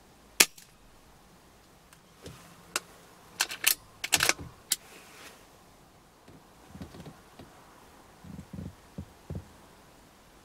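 A sharp, loud click, then a quick cluster of clicks and knocks about three to five seconds in, followed by a few softer low thumps.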